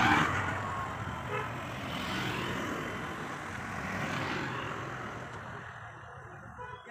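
Motorbikes passing close by on a road: a loud pass at the start, another about two seconds in and another about four seconds in, then the engine noise fades away.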